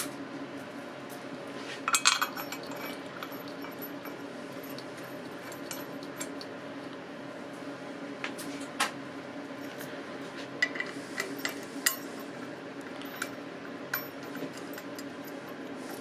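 Metal clinks and taps of bolts and an alternator bracket being handled and fitted to an engine block, loudest just after the start, with scattered lighter clicks later, over a steady low hum.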